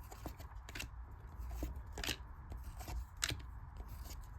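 Basketball trading cards being handled and flipped through: soft slides and scattered light clicks of card stock, with a few sharper ticks.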